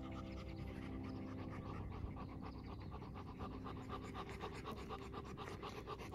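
Bernese mountain dog panting close up, a quick even rhythm of several breaths a second.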